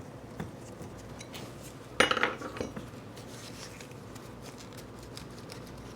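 Small metal lathe parts clinking and clattering on a workbench, with one loud ringing clatter about two seconds in and light clicks of handling around it.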